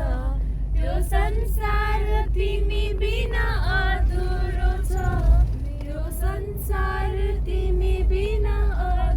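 Young women singing a Nepali song unaccompanied in an antakshari sing-along, in long held melodic phrases, over the steady low rumble of the moving vehicle they ride in.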